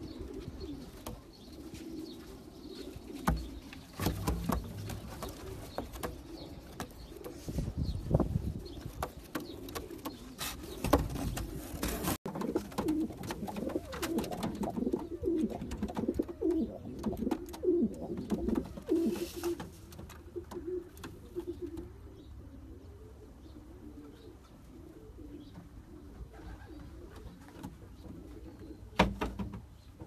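Racing pigeons cooing in a loft: a continuous low, wavering cooing, with a few sharp knocks or wing flutters scattered through it. The sound changes abruptly about twelve seconds in.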